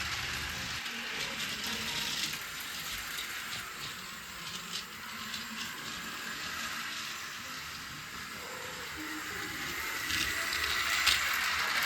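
Battery-powered toy train running along its track: a steady whirring hiss with faint clicks, quieter in the middle and louder again near the end.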